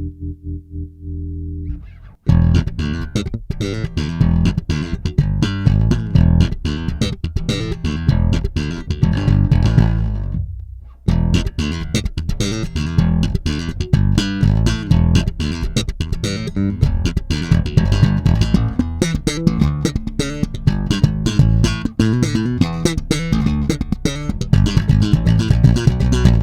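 Bass guitar playing a groove: a held low note dies away, then a fast run of sharply plucked notes, with a short break about eleven seconds in before the groove picks up again.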